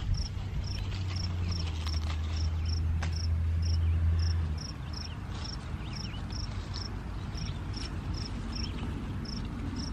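Cricket chirping steadily and evenly, nearly three short high chirps a second. A low hum underneath stops a little under halfway.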